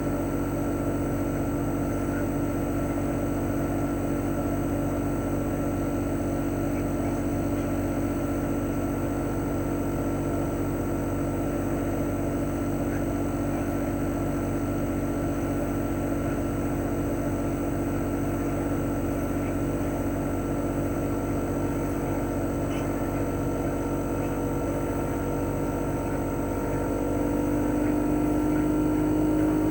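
CHOFU AE-2844PX mini-split air conditioner outdoor unit running in cooling mode. Its GMCC single-rotary inverter compressor hums with steady tones under the propeller fan's whoosh. Near the end the compressor tone rises in pitch and gets louder as it speeds up.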